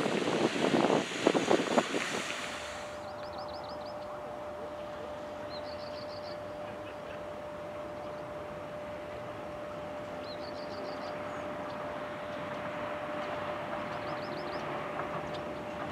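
Wind noise and road traffic for the first couple of seconds, then a PESA SA134 diesel railbus approaching slowly from a distance: a steady engine hum that grows a little louder near the end. A bird sings a short rapid trill every two to three seconds.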